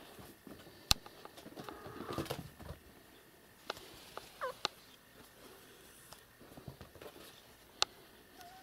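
A cat's short chirping mew about halfway through, with a few sharp clicks and some light scuffling around it.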